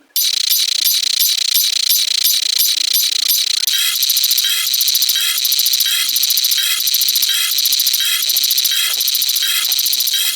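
Rapid, evenly repeating mechanical clicking like a ratchet, with a second tick joining in about every three-quarters of a second from about four seconds in.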